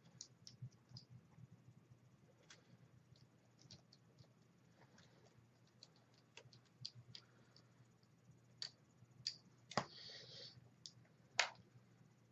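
Faint, scattered small clicks and ticks of a screwdriver and small metal parts being handled as mounting brackets are fitted to a laptop screen panel, with a brief scrape and two sharper clicks near the end.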